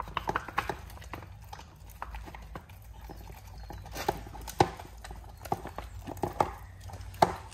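A dog eating turkey out of an aluminium foil tray on a hard floor: irregular sharp clicks and knocks from the mouth and the tray, with a cluster in the first second and the loudest knocks about four and a half and seven seconds in.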